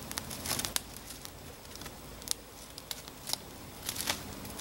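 Small wood campfire crackling, with irregular sharp pops and snaps from the burning sticks.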